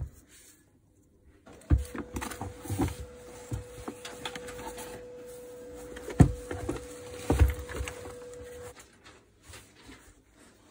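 Knocks and thuds of a garden shredder's electric motor and plastic housing being handled and set down on a workbench, the loudest about two, six and seven seconds in. A faint steady tone runs under the middle and stops near the end.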